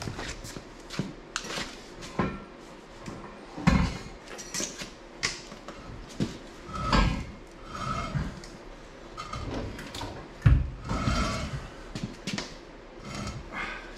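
Steel truck axle and leaf-spring parts being handled and shifted on a concrete floor: irregular metal clanks and knocks, with heavy thuds about four, seven and ten seconds in.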